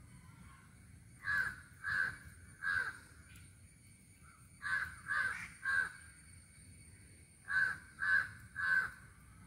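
A crow cawing: three harsh caws in quick succession, repeated three times.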